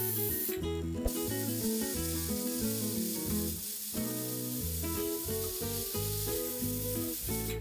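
Aluminium pressure cooker whistling: steam hissing steadily out under the weighted vent on the lid, breaking off briefly about half a second in and stopping just before the end, which marks the cooker reaching pressure, counted as its second whistle. Background guitar music plays under it.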